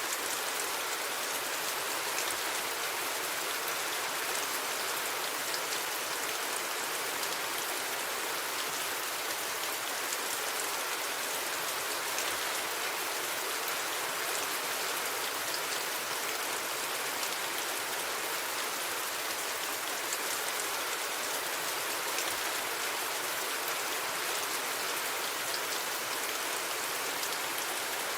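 Steady rain falling, an even hiss with scattered small drop ticks; no thunder.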